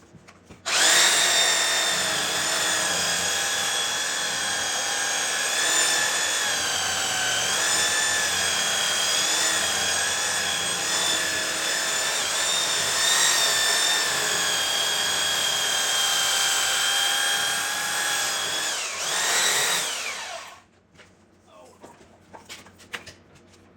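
Electric power sander with 80-grit paper running on cherry wood: a steady high motor whine whose pitch wavers slightly as it is pressed into the board. It starts about a second in and runs for nearly twenty seconds, then briefly revs and winds down to a stop.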